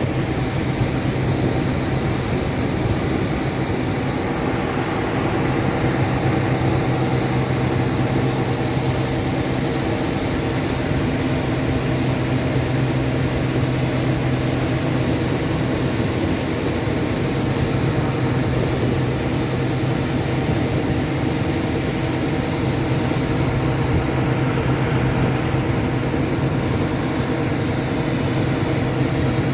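Diesel engine of harvest machinery, a combine or tractor, running steadily under load with an even hum and hiss.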